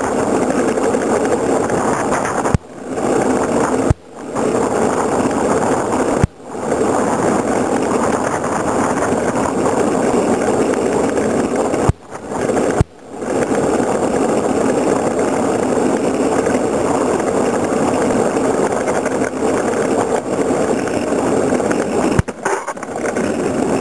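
Wooden soapbox cart rolling fast downhill, heard from on board: a loud, steady rumble of its wheels on the asphalt, broken several times by sharp knocks, each followed by a brief dip in the sound.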